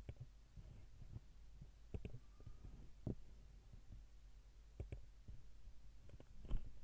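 Faint computer mouse clicks, a few of them spaced a second or two apart with the loudest near the end, over a low steady hum.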